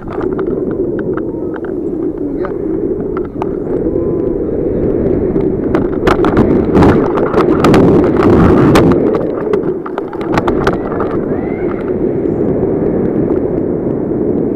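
Wind buffeting a camera's microphone during paragliding flight: steady wind noise with scattered clicks and knocks, loudest about six to nine seconds in, when the camera is being handled and turned.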